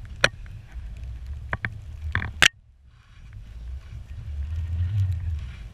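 Wind rumbling on an action camera's microphone while skiing through deep powder among trees, with several sharp knocks in the first half, the loudest about two and a half seconds in. The sound drops out for about half a second right after that knock, then the rumble returns.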